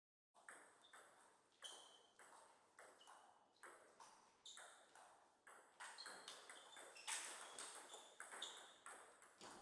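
Table tennis ball clicking off bats and the table in a rally, a sharp pock about every half second with a short echo after each hit.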